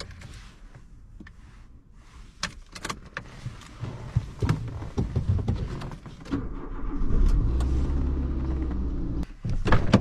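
Clicks and key handling, then about six seconds in a car engine starts and runs steadily for about three seconds before cutting off suddenly: a test start with the newly made replacement key.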